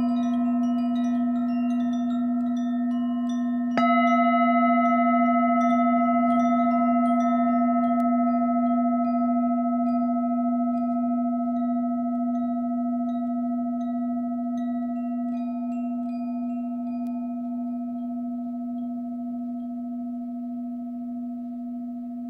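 A singing bowl rings with a strong low hum and higher overtones. It is struck again about four seconds in and then slowly fades, while small chimes tinkle high above and grow sparser toward the end.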